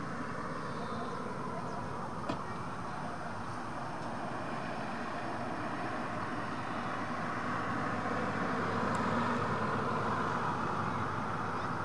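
Steady rushing outdoor background noise, like distant traffic, growing a little louder about eight seconds in. A single faint click comes just after two seconds.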